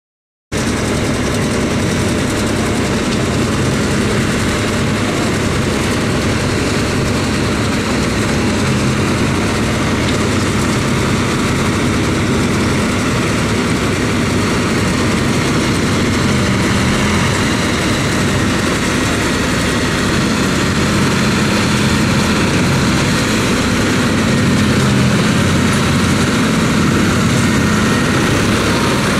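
Tractor engines and a trailed forage harvester working together, a steady drone of engine and machinery as grass is chopped for silage. It starts abruptly about half a second in and holds even throughout.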